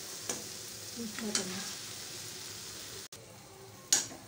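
Button mushrooms in masala sizzling in a metal kadai while a metal spoon stirs and scrapes against the pan a few times, the loudest scrape near the end.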